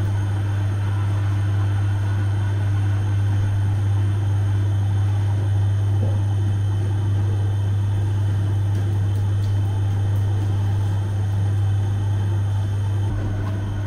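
Steady, loud low hum of a bakery's round-deck bread oven running, cutting off shortly before the end.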